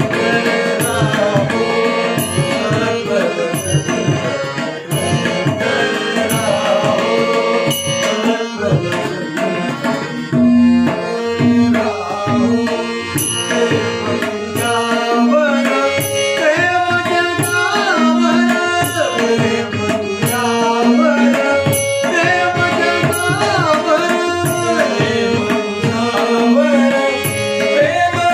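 A devotional bhajan on tabla and harmonium: the tabla plays a dense, steady rhythm under the harmonium's held chords, with a man's voice singing the melody. Small hand cymbals clink in time.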